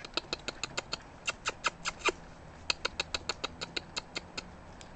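Indian peafowl beaks pecking nuts off gravel: a fast, irregular run of sharp ticks, about five or six a second, with a brief pause a little past two seconds in.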